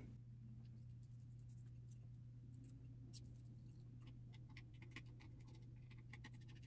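Near silence, with faint scattered light clicks and taps from hands handling small drone parts and tools, over a steady low hum.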